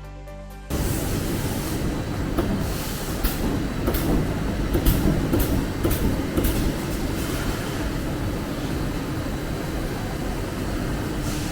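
A vehicle running with a steady low rumble and a scatter of sharp clicks and knocks, most of them between about two and seven seconds in. Background music stops just under a second in.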